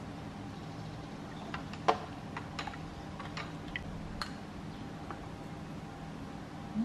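A metal spoon clicking and scraping against small bowls while dried chilli flakes are scooped into a sauce, a scatter of light clicks about one and a half to four seconds in, the sharpest near two seconds. A steady low hum runs underneath.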